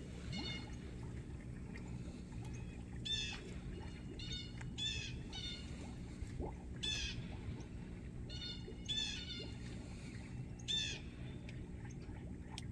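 European starling giving short, harsh calls about ten times, roughly one every second, over a steady low hum.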